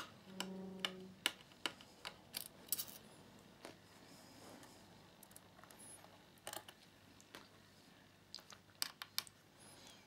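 Faint, scattered clicks and ticks of a small screwdriver working the screws of a laptop's metal bottom cover, at irregular intervals.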